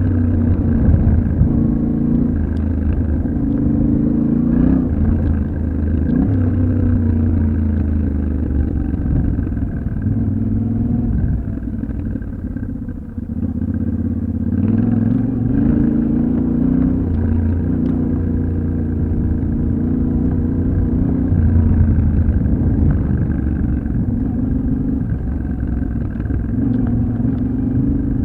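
Yamaha Ténéré 700's 689 cc parallel-twin engine under way off-road, its pitch rising and falling as the rider works the throttle and gears. It eases off briefly about halfway through, then pulls again.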